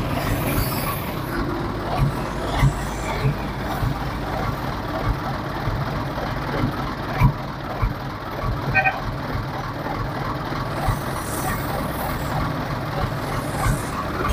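Diesel truck engine, a UD Nissan, idling steadily, heard close to its open exhaust pipe. The engine is losing coolant, which the mechanic puts down to an internally cracked cylinder head.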